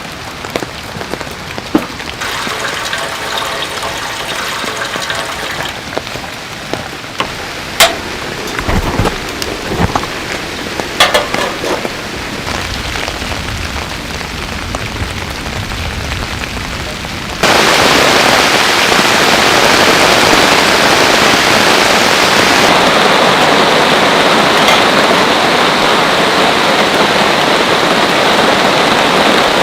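Rain falling steadily, with a few sharp knocks and clicks in the first half. About seventeen seconds in it jumps abruptly to much louder, dense heavy rain.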